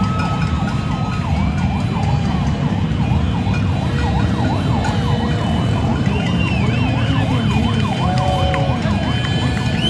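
A dense street-protest crowd with many overlapping whistles and sliding, siren-like noisemaker tones over a steady low din.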